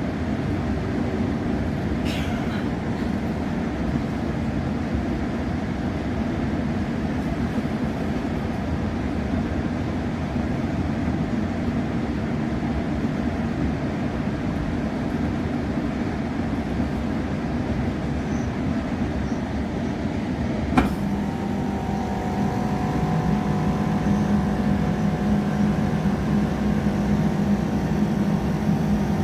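Steady rumble inside a Great Western Railway passenger train. About 21 seconds in there is a single sharp knock, after which steady engine tones come in and the sound grows a little louder, as the train gets under way.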